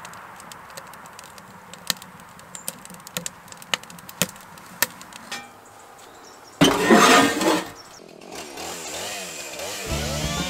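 Two-stroke chainsaw starting up: a run of sharp clicks and knocks, then a loud burst of engine noise for about a second, then the engine running with its pitch wavering up and down. It settles into a steady drone near the end.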